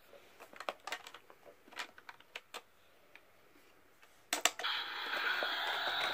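Clicks and knocks of hard plastic as the Paw Patrol Sub Patroller toy submarine is handled and its top pressed. About four seconds in comes a sharp click, then the toy's electronic sound effect, a steady rushing noise, plays through its small speaker.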